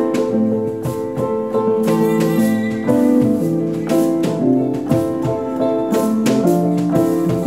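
Acoustic pop band playing an instrumental passage with no singing: piano with plucked acoustic guitar.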